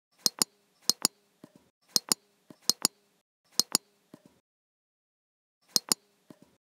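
Computer mouse button clicking: about ten sharp clicks, each a quick press-and-release pair, roughly half a second apart, with a pause of about a second and a half near the end.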